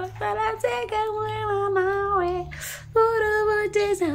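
A woman singing unaccompanied in long held notes that slide between pitches, with a short breath about two and a half seconds in.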